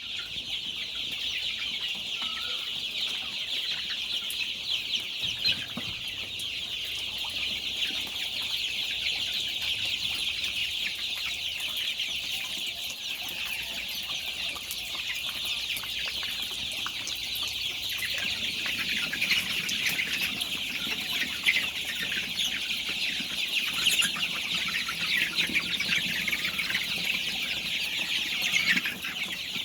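A large flock of Sonali chickens calling all at once, a dense, unbroken high-pitched chatter of overlapping peeps and clucks. A low drone joins about two-thirds of the way in.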